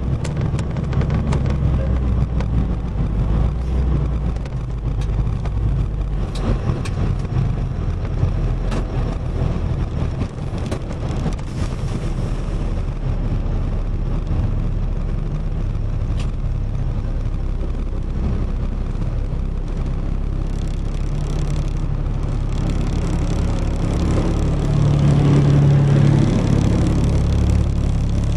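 Box truck driving down the road: steady engine and road noise, with the engine growing louder near the end.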